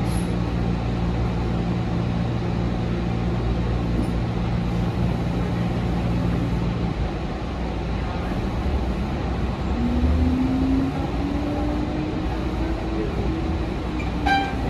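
New Flyer XT60 electric trolleybus running, with a low rumble throughout. A steady hum stops about halfway, then the electric drive's whine rises slowly in pitch as the bus gathers speed. A brief high tone comes near the end.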